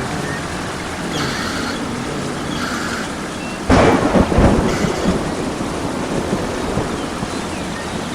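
Steady rain with a sudden loud thunderclap a little under four seconds in, rumbling on for about a second.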